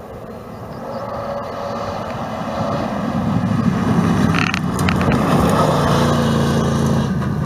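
Rally truck's engine at full throttle on a gravel stage, growing louder as the truck approaches and passes at speed, with a few sharp clatters about four and a half seconds in.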